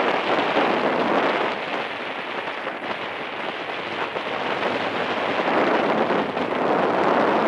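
Loud steady rushing hiss of wind and water around an open sailing dinghy under way in choppy water, swelling and easing slightly.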